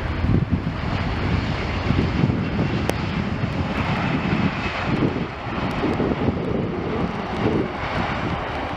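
Airliner engine noise, a steady roar as the aircraft passes, with gusts of wind buffeting the microphone underneath.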